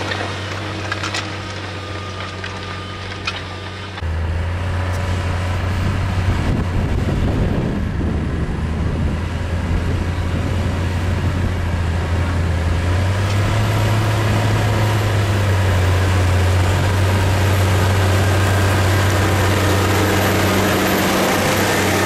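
New Holland T7040 tractor's six-cylinder diesel engine running under steady load while pulling a plough, a steady low drone. It gets louder about four seconds in.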